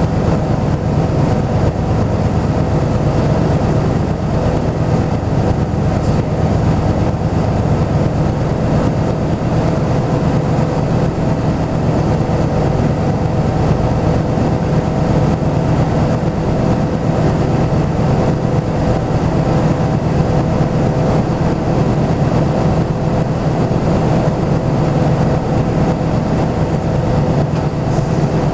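Diesel engine of a 1999 Hino Blue Ribbon (KC-HT2MMCA) city bus idling steadily while the bus stands still, heard from inside the passenger cabin as a constant low hum.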